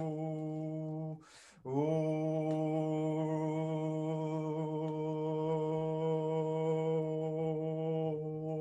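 A man's voice toning one long, steady low note, like a held mantra or hum. It breaks once, about a second in, for a quick in-breath, then takes up the same note again.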